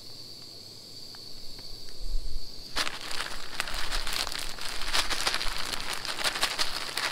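Plastic zip-top bag crinkling, with crushed potato chips crackling inside as it is squeezed and worked by hand to coat a trout fillet. The crinkling starts about three seconds in and keeps going.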